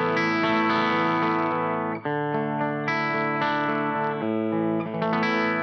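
Sire H7 electric guitar playing chords through a Marshall Origin 50H amp head, about five chords each let ring, the amp's base tone with a little grit.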